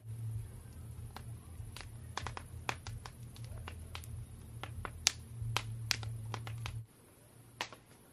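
Wood campfire of unsplit round logs crackling, with irregular sharp pops, over a low steady rumble that cuts off abruptly near the end.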